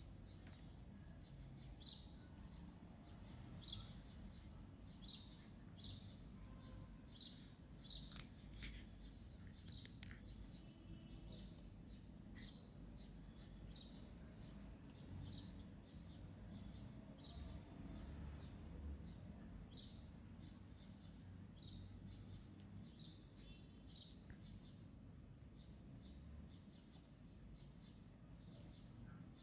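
Faint bird chirping: one short high chirp about every second, over a low background hum, with a few faint clicks about a third of the way in.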